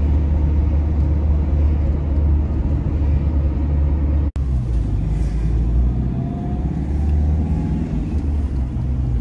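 Steady low rumble of a motorhome's engine and tyres on the road, heard from inside the cab while driving. It drops out for an instant about four seconds in, then carries on as before.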